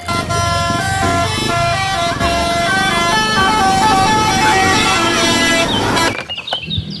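Telolet bus horn: a multi-tone horn playing a stepping tune of several held notes together, cutting off sharply after about six seconds. A few short, high chirps follow near the end.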